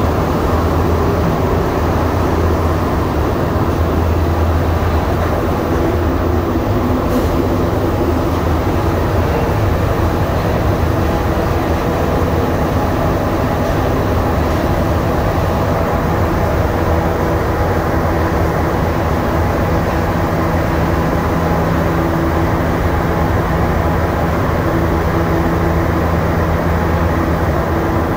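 Montreal Metro rubber-tyred train running steadily between stations: a constant rumble with a low hum and some higher tones from the running gear that come and go.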